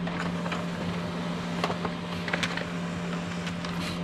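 HP laser printer printing a page: a steady motor hum with scattered sharp clicks as the sheet feeds through.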